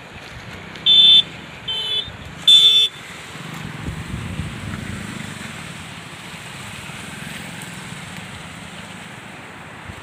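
A vehicle horn sounds three short honks about a second in, the last the loudest. A steady low rumble of a moving vehicle and wind follows.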